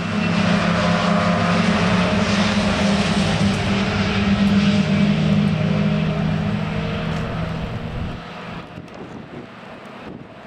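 Classic Mini racing car's four-cylinder A-series engine running at steady high revs, then fading away about eight seconds in.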